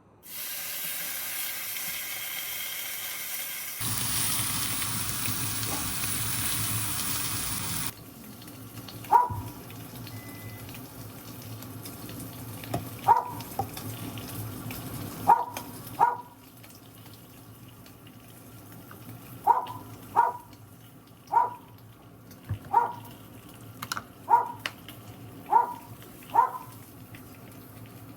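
Kitchen tap running for about eight seconds, splashing harder after about four seconds, then shut off. After that comes a low steady hum with about a dozen short, sharp, high yips scattered through the rest.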